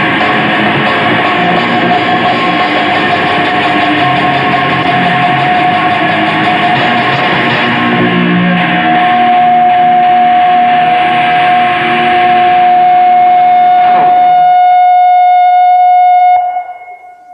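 Live heavy metal band playing: distorted electric guitars, bass, drums and keyboards. Near the end the band stops and a single held high note rings on alone for about two seconds, then cuts off.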